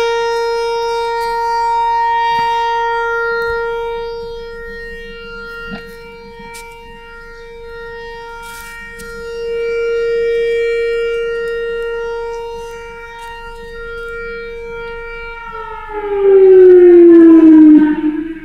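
Outdoor tornado warning siren holding one steady wail that swells and fades slowly as its rotating horn turns toward and away. About 15 seconds in it winds down, its pitch falling in a long glide.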